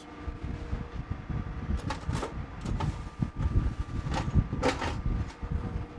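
A few light knocks and clicks as a sauce squeeze bottle and kitchen tongs are handled, over a steady low rumble and a faint steady hum.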